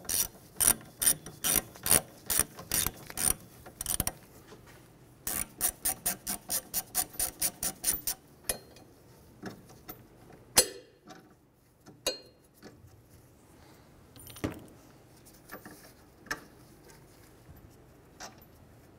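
Hand ratchet clicking as it backs out the bolts holding the rear wheel hub: one steady run of clicks, then after a short pause a faster run, followed by a few scattered clicks and knocks.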